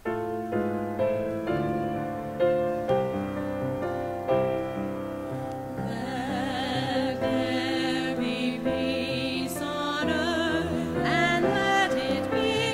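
Recessional hymn: a keyboard plays an introduction of held chords, and about six seconds in a solo singer with a strong vibrato comes in.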